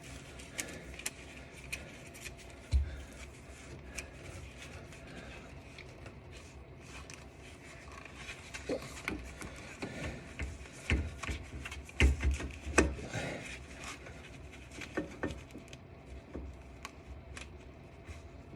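Scattered light clicks, knocks and rubbing of metal parts and tools being handled, with a few dull thumps about three seconds in and again around eleven to thirteen seconds in.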